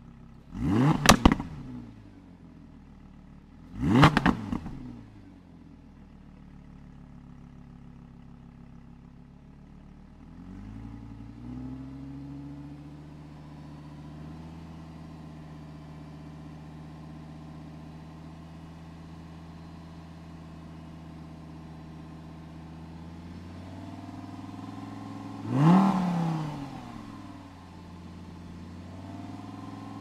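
Audi R8 engine idling, blipped to a sharp rev and back twice near the start and once more late on. The idle steps up slightly in pitch about eleven seconds in.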